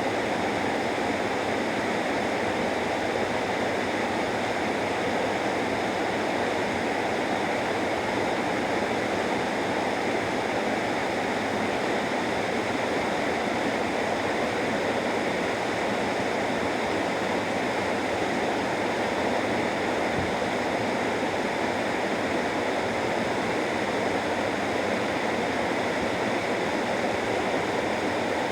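Waterfall in the Kido River gorge: a steady rush of falling water, even and unbroken throughout.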